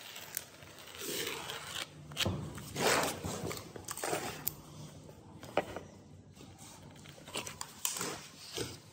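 Irregular scraping and rubbing on plywood, a stroke every second or two, with a few sharp knocks, as a plywood sheet and a wooden strip are handled and slid on a sawdust-covered floor.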